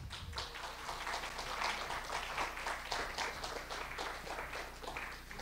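Audience applauding: many hands clapping in a dense patter that thins a little near the end.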